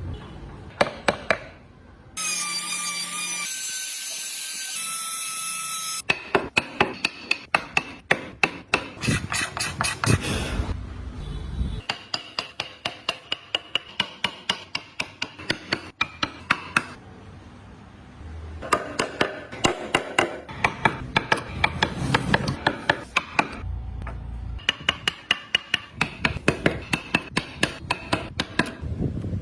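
Runs of sharp hammer strikes on a workpiece, about three or four a second, with short pauses between the runs. Early on a few seconds of a steady whine that shifts pitch a few times, typical of a small power tool.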